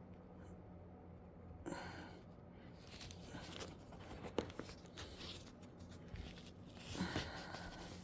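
Faint handling noise from a chair being inspected: scattered light clicks and rustles, a few sharper ticks about four and a half seconds in, over a low steady hum.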